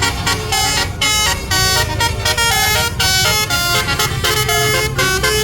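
Basuri 'telolet' musical air horn playing a melody: a quick run of held notes stepping up and down in pitch, with a low rumble underneath.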